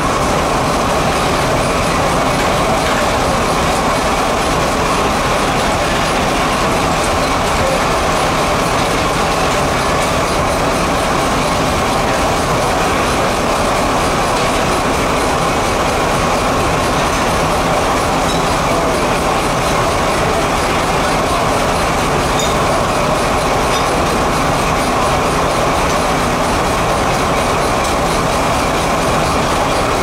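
Antique sawmill belt-driven by a steam traction engine, running continuously: a loud, unbroken machinery din with a steady high band from the saw and mill.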